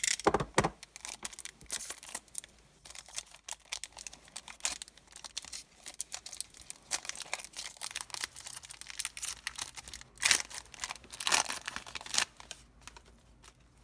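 Foil wrapper of a Pokémon booster pack crinkling and tearing as it is opened and handled: irregular crackles throughout, louder right at the start and again about ten to twelve seconds in.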